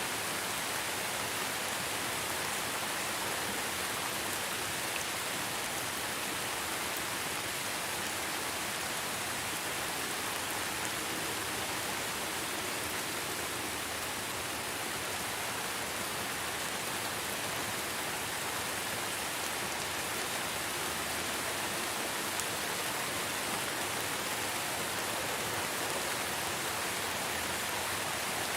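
Steady, even rain hiss with faint scattered drop ticks.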